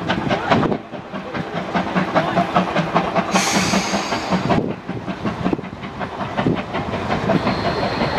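Steam locomotive pulling a train away, working hard, its exhaust beating in quick chuffs. About three seconds in there is a burst of steam hiss lasting just over a second, and near the end a thin high steady tone joins in.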